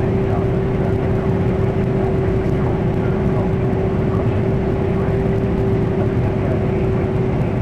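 Combine harvester running as it cuts oilseed rape, heard from inside the cab: a steady engine and machinery drone with one constant hum over it.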